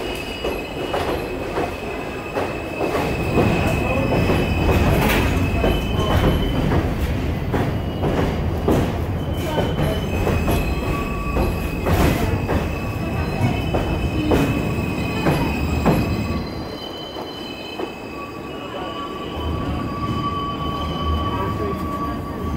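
Elevated subway train running through the Crescent Street curve, its wheels squealing in steady high tones over quick clacks of the wheels across the rail joints. It is loudest in the middle, then fades about sixteen seconds in while a thin squeal lingers.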